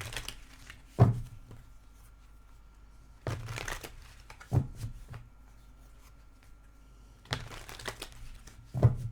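Tarot cards being handled and shuffled: two stretches of rustling and several soft knocks on a table.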